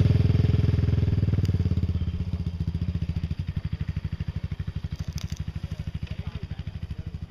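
Honda TRX700XX quad's single-cylinder engine running under load with a steady, even firing beat as it climbs a steep hill, loud at first and fading as it pulls away.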